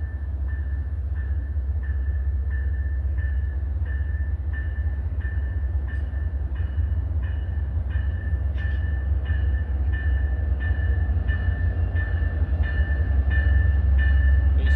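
Amtrak passenger locomotive's bell ringing steadily, about three strikes every two seconds, over the low rumble of the arriving train, which grows louder as it approaches.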